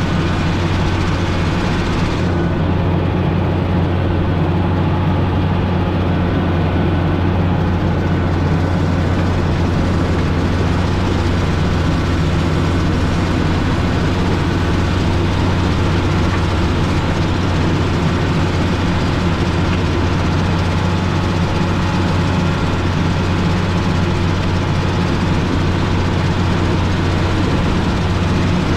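Motor grader's diesel engine running steadily, a constant low drone that holds the same level throughout.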